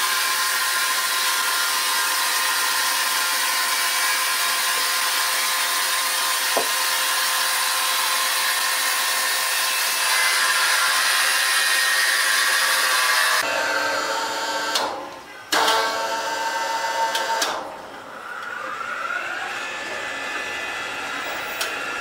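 Large horizontal band sawmill running its blade through a big squared timber block, a steady hiss with a high whine. About thirteen seconds in the sound changes abruptly to a lower machine noise that drops out briefly twice.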